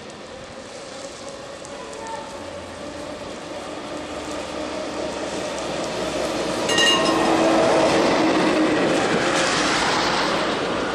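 Gotha T2-62 two-axle tram running toward and past on wet rails, its motors and wheels growing louder as it approaches and loudest as it passes. A brief metallic ring comes about seven seconds in.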